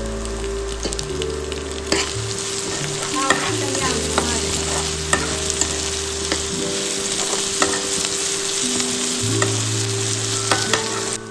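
Food sizzling as it fries in hot oil in a pan, stirred with a spatula that knocks against the pan now and then. The sizzle cuts off sharply near the end, and soft background music with held notes plays under it.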